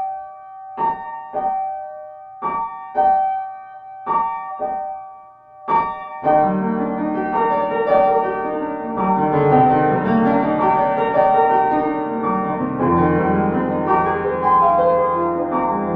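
Piano music introduction: short detached chords struck about twice a second for the first six seconds, then a fuller, flowing piano part with bass notes comes in.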